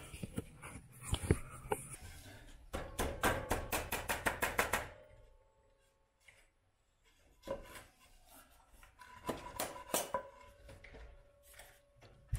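Rapid knocking on a wooden 2x4 gate frame as it is worked onto the wire ends of a hog panel, about six sharp knocks a second for two seconds. It stops about five seconds in, then scattered lighter knocks and taps follow.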